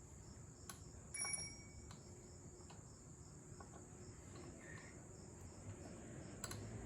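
Crickets chirping steadily in the background, faint, with a few small clicks and one brief ringing clink about a second in.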